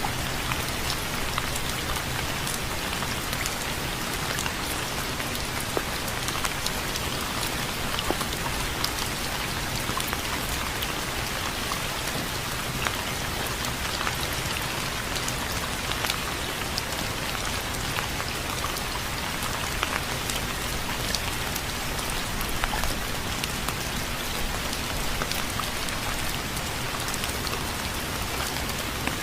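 Steady rain falling on a hard surface, a dense even hiss scattered with the clicks of individual drops.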